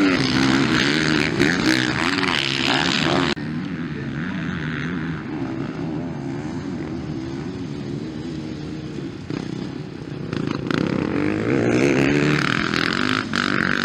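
Motocross bike engines revving loudly, then, after a sudden cut, a single motocross bike running on the track with its engine pitch rising and falling as the rider works the throttle, growing louder near the end.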